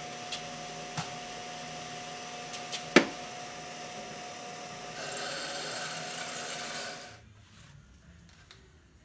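Benchtop drill press motor running with a steady hum, with a sharp knock about three seconds in. From about five to seven seconds the twist bit cuts into the stainless steel cleaver blank with a higher scraping noise, then the motor stops.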